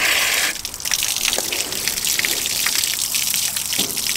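Water from a garden hose being flushed through a removed RV water heater tank to clean out sediment, gushing out of the tank's opening and splashing onto concrete. The rush of water changes about half a second in, then keeps on steadily.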